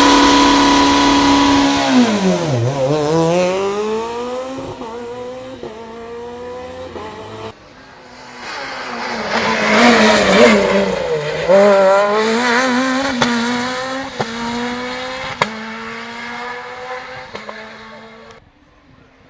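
Rally car engines at full throttle on a special stage. The first car holds a high, steady note, dips sharply as it brakes, then climbs through several upshifts as it pulls away and fades. A second rally car then approaches, passes loudest about ten seconds in, and accelerates away through its gears, fading.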